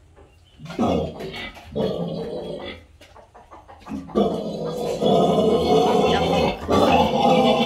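A pig squealing loudly in two long bouts, the first starting about a second in and the second, louder one about four seconds in.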